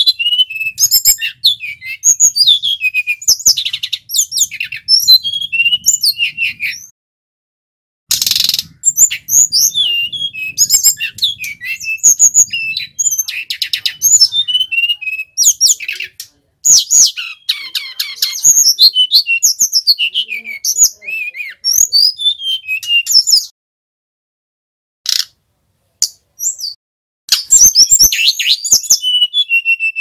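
A sikatan rimba dada coklat (jungle flycatcher) singing a fast, varied song of high chirps and downward-sliding whistles. The song comes in long runs broken by a few pauses of a second or two.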